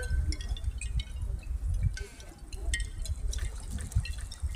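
Water trickling and dripping, with many short high plinks scattered over a steady low rumble.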